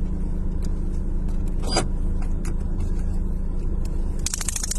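Car engine idling steadily, heard from inside the cabin, with a short rapid clicking rattle near the end.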